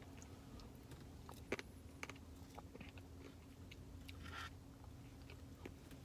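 Quiet eating sounds, with faint chewing and a few small crunches and clicks as a spoonful of Blizzard with cookie dough and brownie pieces is eaten, over a low steady room hum.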